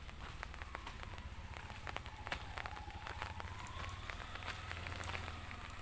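Light rain pattering in scattered drops, faint, over a low steady rumble.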